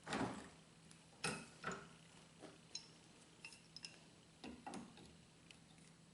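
A wrench clinking and knocking against a valve fitting as a threaded plastic PVC adapter is tightened down: a handful of sharp knocks, the loudest at the very start, with faint ticks between.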